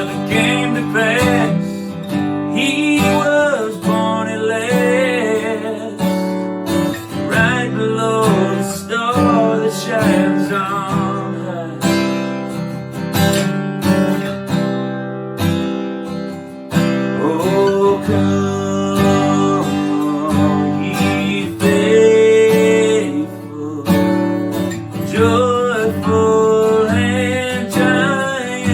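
Acoustic guitar strumming chords in a holiday song, with a wavering melody line rising over it several times.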